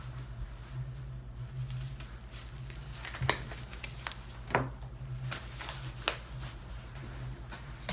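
Disposable exam gloves being pulled on, rustling, with two sharp snaps a little over a second apart about three seconds in and a few lighter clicks after, over a steady low hum.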